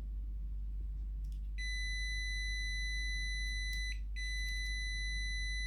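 Digital multimeter's continuity beeper sounding a steady, high-pitched beep as its test leads make contact. It starts about a second and a half in, breaks off briefly about halfway through, and then sounds again.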